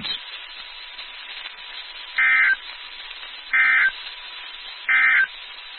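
Three identical short bursts of NOAA Weather Radio SAME digital data tones, about 1.3 s apart, over faint radio hiss. They are the end-of-message code that closes a warning broadcast.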